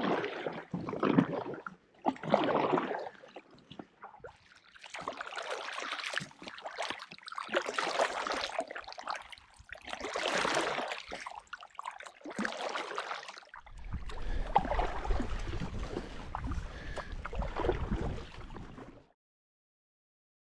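Kayak paddle strokes dipping and splashing in lake water, a swell of water noise every second or two. Near the end comes a longer, rougher stretch with a low rumble under it, which then cuts off suddenly.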